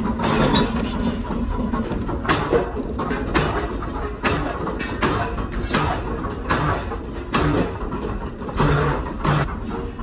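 Workshop machine noise: a steady low running hum with irregular knocks and clatter over it.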